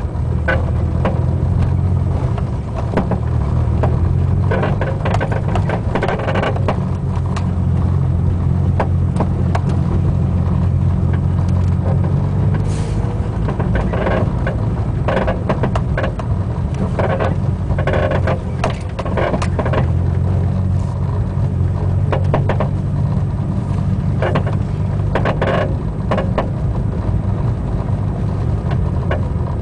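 Front driver's-side Buddy Club Racing Spec coilover on a Mitsubishi Lancer Evolution IX MR creaking, popping and clunking in irregular sharp knocks, some in quick clusters, over the steady low drone of the moving car. The owner traces the creak to the top mount and the pops and clunks to the spring and shock body.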